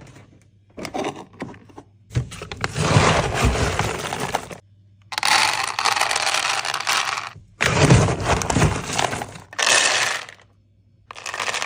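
Dry dog kibble poured into bowls, a dense rattling patter that comes in about five separate pours of one to two and a half seconds each, with short pauses between them.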